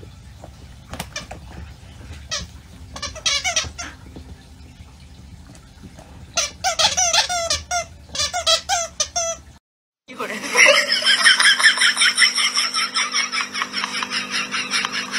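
Dog chewing a plush squeaky toy, squeezing out a run of short, rapid squeaks that come thickest in the seconds before the cut. After a brief dropout, a louder, continuous, busy sound with a steady hum under it takes over for the last few seconds.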